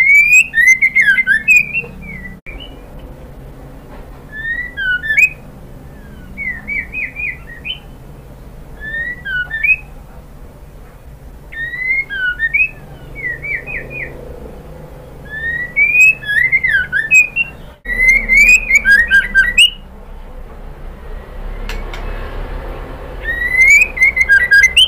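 White-rumped shama (murai batu) singing about nine short phrases of quick, clear whistles with rapid up-and-down slurs, each lasting a second or two, with brief pauses between.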